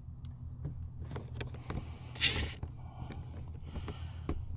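Small clicks and scrapes of screws and plastic trim being worked into the bottom of a pickup's door panel, with a short rasping scrape about two seconds in, over a steady low hum.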